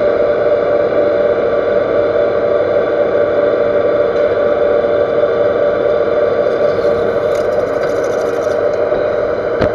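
Metal lathe rough-turning a 4140 steel shaft with a carbide insert under flood coolant: a steady machining hum with a held tone, and a brief click near the end.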